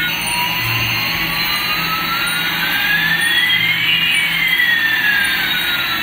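Electronic jet-engine sound effect from toy Airbus A380 planes, over a steady hiss: one pitch rises while another falls, crossing about four seconds in.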